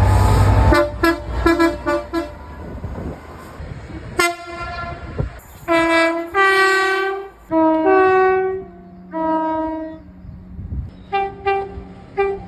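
Train horn with two notes sounding a series of blasts. A loud low train rumble cuts off under a quick run of short toots. Then come three longer blasts, each stepping from a low note to a higher one, and more short toots near the end.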